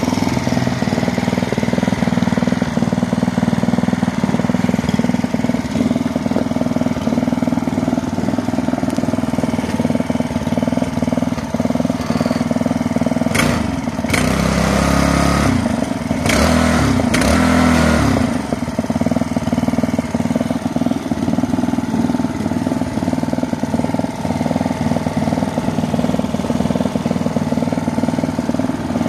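Honda FG201 Petit na mini tiller's small four-stroke engine running steadily at idle. About halfway through, the engine speed changes briefly, with a couple of sharp knocks.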